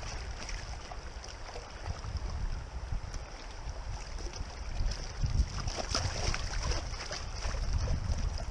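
Shallow river water rushing and gurgling over riffles around a drifting inflatable pontoon boat, with a gusty low rumble of wind on the microphone.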